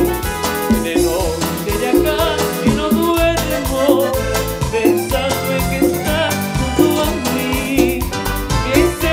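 A live band playing upbeat Latin dance music, with a steady beat, strong bass and percussion, heard loud over a sound system.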